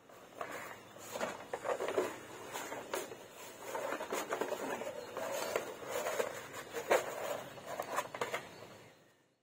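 Rolled paper and a stiff brown sheet being handled and unrolled on a wooden board: irregular rustling and crinkling with light taps and knocks, fading out near the end.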